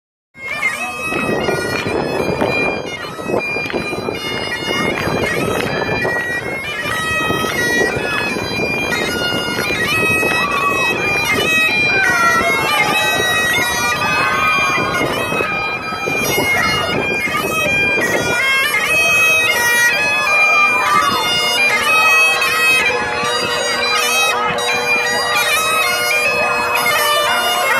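Great Highland bagpipe played by a marching piper: a chanter melody over a steady drone.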